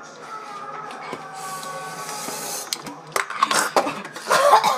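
Young women reacting to the burn of Tapatío hot sauce they have just swallowed: a drawn-out moan, then a flurry of sharp gasps and cries about three seconds in.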